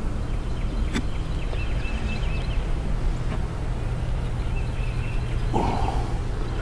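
Honeybees humming steadily around an open hive, with a small bird's short four-note chirping phrase repeating every few seconds and a brief rustle or knock near the end.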